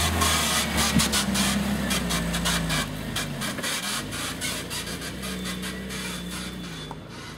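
Engine of a short-wheelbase Toyota Land Cruiser 70-series 4x4 pulling up a steep dirt track, its pitch rising and falling with the throttle and fading as it drives away, over many sharp crackles.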